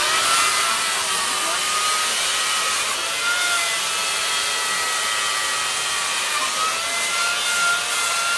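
Handheld electric power tool carving a block of ice, a steady high whine that dips slightly in pitch now and then as it bites, over a hiss.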